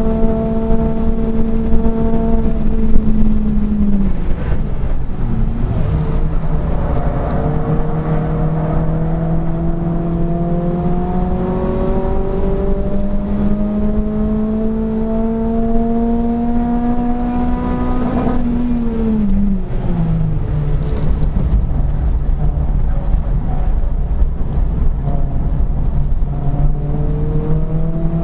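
Renault Clio 3 RS's 2.0-litre four-cylinder engine heard from inside the cabin at speed. Its pitch drops sharply about four seconds in, climbs slowly under load for the next dozen seconds, drops again after about nineteen seconds and begins to rise near the end. Steady road and tyre rumble runs underneath.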